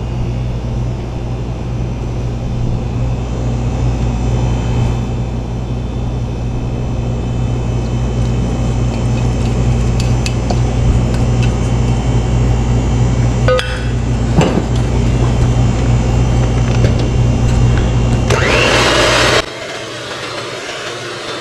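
Steady low machine hum with a few clinks of a spatula against a steel bowl. Near the end an electric hand mixer whirs loudly for about a second, then runs on more quietly in the cake batter.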